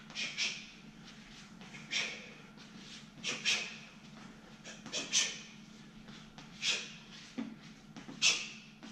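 Short, sharp hissing exhales of a man shadowboxing, one breath pushed out with each punch or combination, about one a second and sometimes two in quick succession. A faint steady hum runs underneath.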